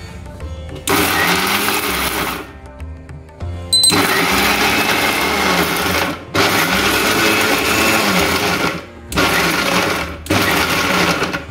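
Electric mixer grinder with a stainless-steel jar grinding shallots, garlic, ginger and whole spices into a coarse masala paste. It runs in several bursts of a couple of seconds each, with short stops between.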